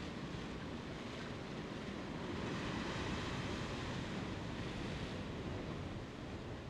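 Rough sea surging and breaking against the rocks, a steady rushing wash that grows a little louder in the middle.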